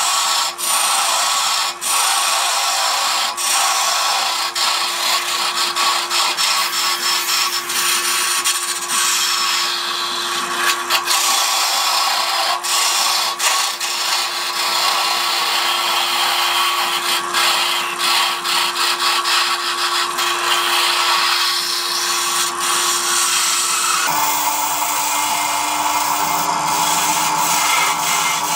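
Wood lathe running with a steady motor hum while a turning tool cuts the spinning areca root, shavings scraping off continuously. Near the end the hum settles slightly lower in pitch.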